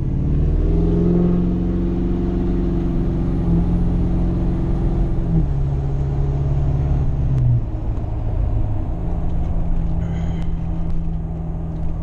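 Ford 6.7 L Power Stroke turbodiesel V8 of a 2011 F-250 pulling under acceleration, heard from inside the cab, its big single turbo a little laggy to come on. A faint high whistle rises in the first second and slowly falls away, and the engine note steps down twice, about five and seven and a half seconds in, before climbing again.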